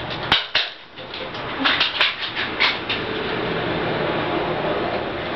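A run of sharp knocks and clicks, irregular and spread over about the first three seconds, then a steady rushing noise.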